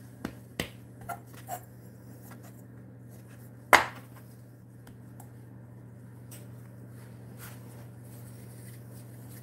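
Hands patting and pressing biscuit dough on a floured wooden board: a few light taps in the first second and a half, then one sharp knock just under four seconds in.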